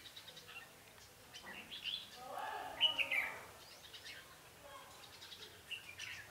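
Red-whiskered bulbuls singing short, bright whistled phrases, the loudest of them about two and three seconds in, with scattered chirps after. It is the challenge song used to draw rival birds to a trap.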